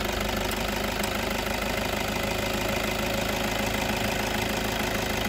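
Toyota Innova engine idling steadily, with the air conditioning and headlights switched on as an electrical load on the alternator during a charging-system check. The alternator clutch pulley has just been replaced.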